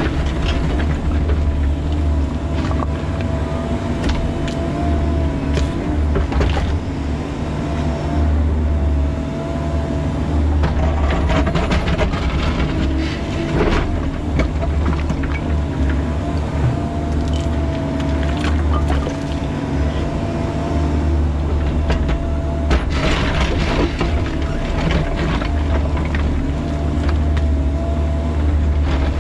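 Bobcat E45 mini excavator digging in rock: its diesel engine runs steadily under load with a thin whine that wavers in pitch as the hydraulics work. The bucket scrapes and knocks against stone in the trench, with irregular clanks throughout.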